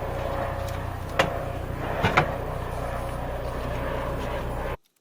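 A vehicle engine idling steadily with a low rumble, and a couple of short knocks a second or two in. The sound cuts off abruptly near the end.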